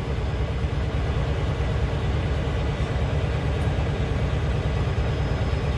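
Semi truck's diesel engine running steadily, a low rumble heard from inside the cab.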